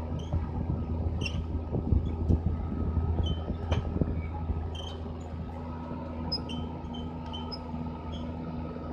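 Deutz-Fahr M620 tractor engine running steadily under load while pulling a reversible plough and packer roller through the soil. Scattered knocks and short high chirps sound over the engine, which runs a little quieter after about five seconds.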